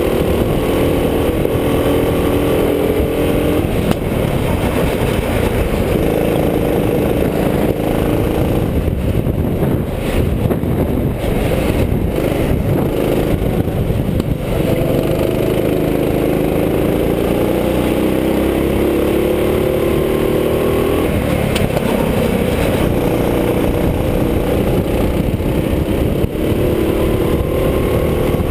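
Go-kart engine heard from the driver's seat, running hard: its pitch climbs under acceleration three times and falls away in between as the driver lifts off for the corners, over a steady low rumble.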